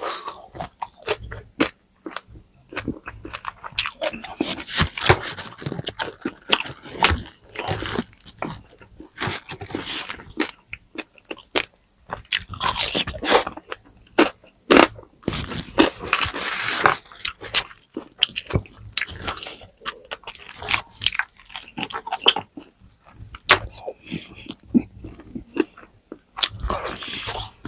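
Close-miked chewing and crunching of crispy pata, the deep-fried pork knuckle's crackling skin breaking in irregular bites with wet chewing between them.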